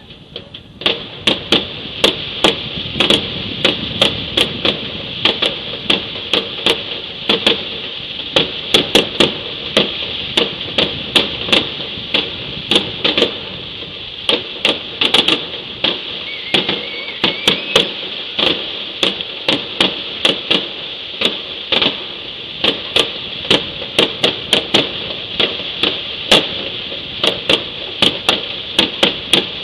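New Year fireworks going off, an irregular string of sharp bangs and cracks, two or three a second, over a steady hiss.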